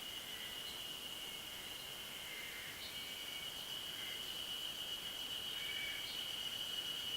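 Chorus of Ezo harusemi cicadas (Terpnosia nigricosta) singing as one steady, high-pitched drone. Fainter short notes come and go over it.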